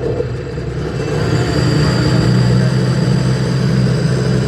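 Sea-Doo RXP-X 300's supercharged Rotax 1630 ACE three-cylinder engine running at a steady idle, rising in level over the first second or so. It runs but won't rev, which the mechanic puts down to a faulty throttle body.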